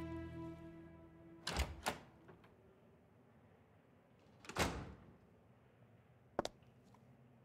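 Background music fades out in the first second. Then two quick door thunks, a short swish a few seconds later and a single sharp click near the end.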